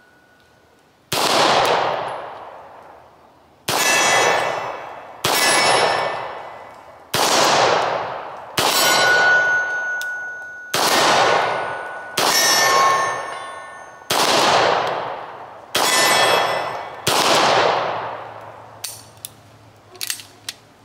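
Beretta 92FS 9mm pistol fired ten times at a slow, steady pace, shots about one and a half to two and a half seconds apart, each followed by the ring of a hit steel target. A few light clicks near the end.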